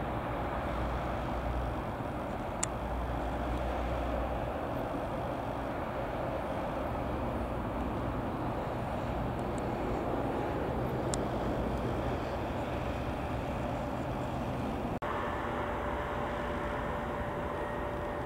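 Twin-turboprop ATR airliner at takeoff power, a steady propeller and engine drone as it rolls down the runway and climbs away. About 15 seconds in the sound cuts abruptly to the steady whine of a twin-jet airliner's engines on approach.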